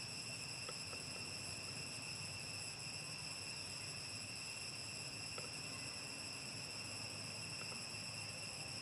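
Steady, high-pitched insect chorus: one unbroken tone with fainter overtones above it, over a low outdoor rumble, with a few faint soft ticks.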